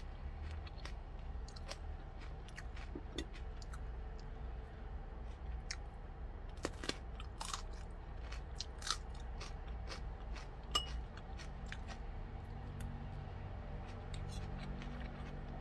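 Crisp crunching and chewing of a raw cucumber chili pepper being bitten and eaten, with scattered sharp crunches.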